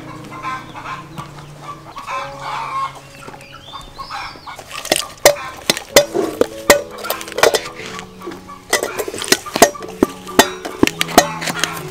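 Chickens clucking, over soft background music of held notes. From about five seconds in, a quick run of sharp, loud clicks and taps.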